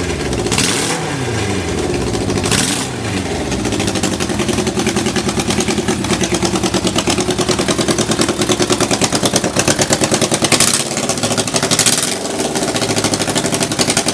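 Kawasaki Z550GP air-cooled inline-four engine running with throttle blips: the revs rise and fall a few times in the first three seconds and again around eleven to thirteen seconds, dropping back to an even idle in between. The idle is steady, with no abnormal noises, as the seller describes it.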